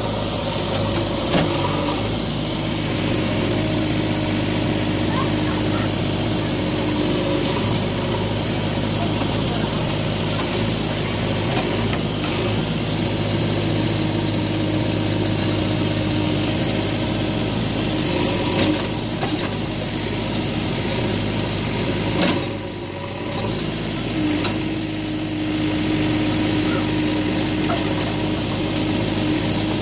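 JCB 3DX backhoe loader's diesel engine running steadily as the backhoe arm works, the engine note rising and holding for a few seconds at a time under hydraulic load.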